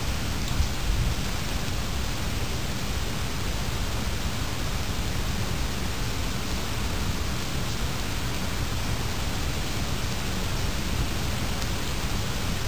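Steady rain: an even, unbroken hiss with a low rumble underneath.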